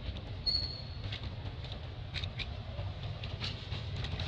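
Dry leaf litter crackling and rustling in small scattered clicks as macaques move and feed, over a steady low rumble. One short, high squeak about half a second in.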